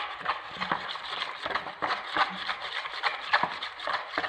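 Wire whisk beating a thin chickpea-flour batter in a plastic bowl: a quick, even run of light clicks and swishes, several strokes a second.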